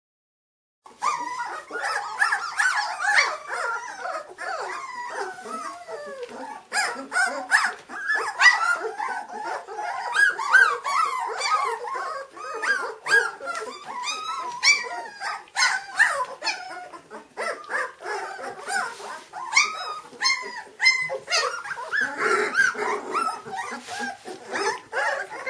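A litter of Doberman puppies crying and yapping, many high-pitched voices at once, starting about a second in.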